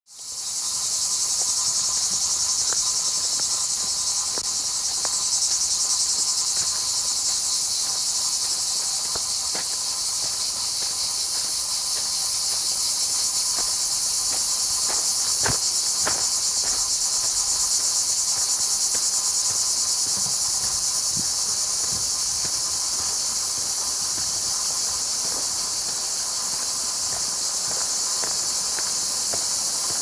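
A loud, steady chorus of cicadas, a dense high buzz that does not let up. A few faint clicks are scattered through it, the sharpest about halfway through.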